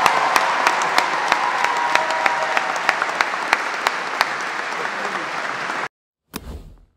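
Audience applauding, with a few voices cheering in the first second or so. The applause cuts off abruptly about six seconds in, and a brief faint whoosh follows.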